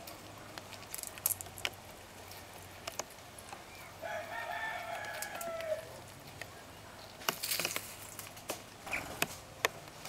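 A rooster crows once about four seconds in, a call of nearly two seconds that drops in pitch at the end. Around it come scattered sharp clicks and crackles, in clusters about a second in and again from about seven seconds on: young squirrels cracking seeds and shuffling over the seed-strewn ground.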